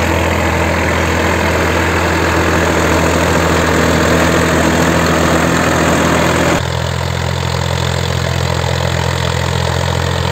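Solis 4215 E tractor's diesel engine running steadily while tilling with a rotavator. About two-thirds of the way through, the sound drops slightly and turns duller all at once.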